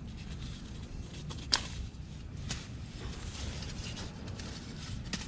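Light rustling and handling noises from a bivy sack and its paper tags, with one sharp click about a second and a half in, over a low steady rumble.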